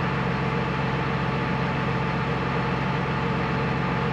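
Tractor engine running at a steady speed, heard from inside the cab, while it drives the hydraulics for the cultivator's wing-fold cylinder.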